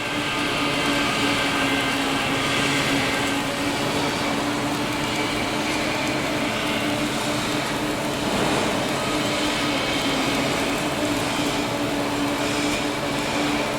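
Submerged arc welding machine running: a steady hum over a constant even hiss, unbroken throughout.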